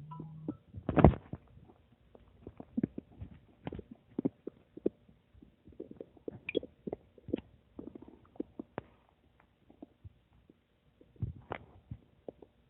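Human stomach gurgling: an irregular run of short pops and gurgles, the loudest about a second in, going quiet for a moment before a last cluster near the end.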